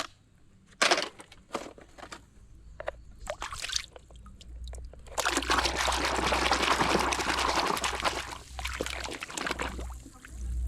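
A few separate knocks and clicks as toys are handled, then from about five seconds in, water pouring steadily over toys being washed for about five seconds.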